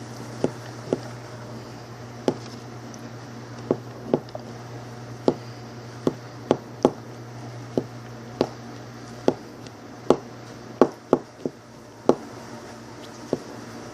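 A table knife knocking and clicking against the inside of a plastic medicine bottle while it squishes and stirs honey, garlic, ginger and ground cloves, about twenty sharp, irregular taps.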